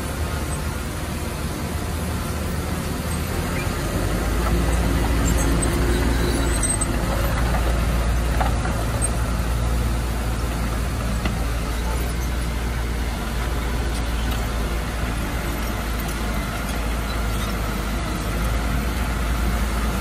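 Diesel engine of heavy earthmoving machinery running steadily, growing louder about four seconds in.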